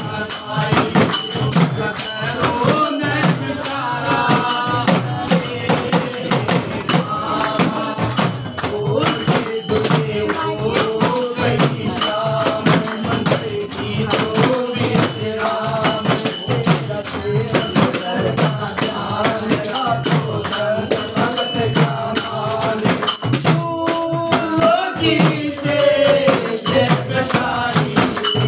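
Voices singing a Hindi devotional bhajan to the goddess Durga over steady rhythmic percussion.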